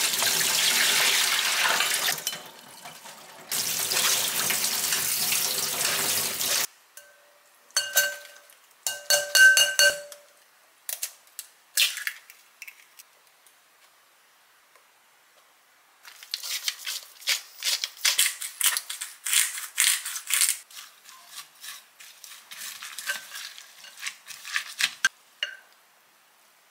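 Water pouring off shredded cabbage into a stainless steel sieve in a sink, in two runs. Then a few ringing clinks on a glass bowl, and later a wooden spoon stirring and scraping shredded cabbage with batter in the glass bowl, a quick dense clatter lasting several seconds.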